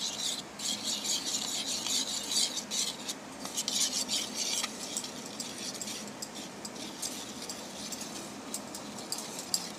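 Metal spoon stirring and scraping a thick tomato-and-chilli sauce paste around a plate, with scattered light clicks of the spoon against the plate. The scraping is strongest in the first half and lighter after that.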